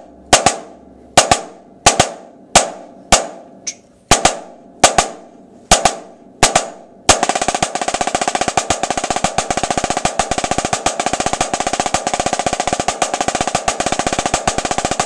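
Snare drum played with sticks: for about seven seconds, separate accented strokes and flams, each ringing briefly, then a loud accent and a long run of fast, even strokes that stops near the end.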